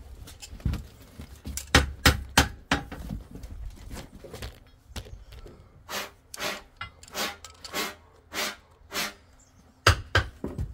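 A length of black steel gas pipe knocked repeatedly against a metal bucket: a few irregular hard knocks, then a steady run of six about every 0.6 seconds, and two more near the end.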